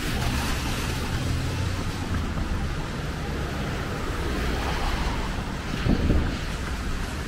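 Road traffic on a rain-soaked street: tyres hissing on wet pavement over the low hum of passing engines, with a louder swell about six seconds in as a car goes by.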